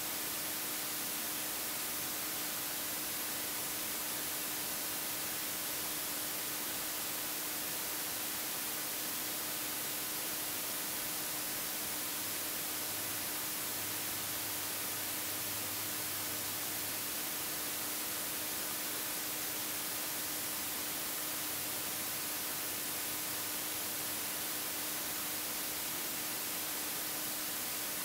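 Steady, even hiss like static, unchanging throughout, with a faint steady hum beneath it.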